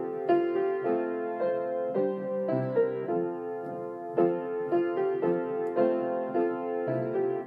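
Background piano music: a gentle melody of separate notes struck at an even pace.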